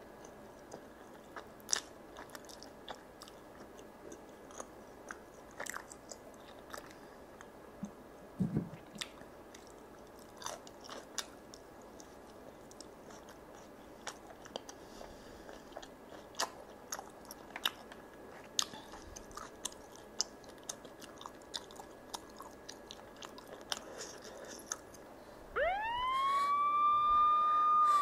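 Close-miked chewing of saucy rice cakes and chicken: scattered soft wet clicks and smacks. Near the end a long pitched tone rises and holds for about two seconds, louder than the chewing.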